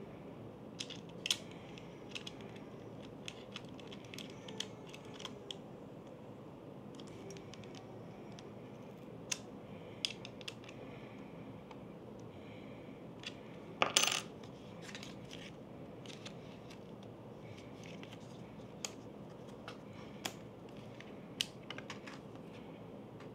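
Scattered small clicks and metallic taps of an aluminium camera cage, its screws and a hex key being handled and fitted to a mirrorless camera, with one louder, slightly longer clatter about fourteen seconds in.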